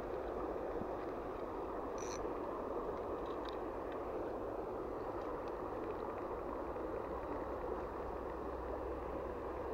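Small, shallow stream flowing steadily over riffles: an even rush of water, with a few faint ticks about two seconds in.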